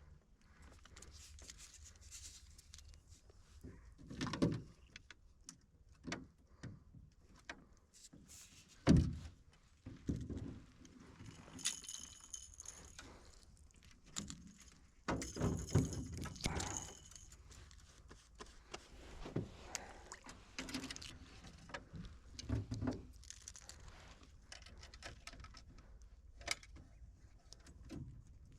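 Scattered knocks, thuds and rattles of things being handled, with brief metallic jingling twice in the middle.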